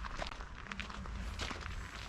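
Footsteps of a person walking at a steady pace, each step a short crisp scuff.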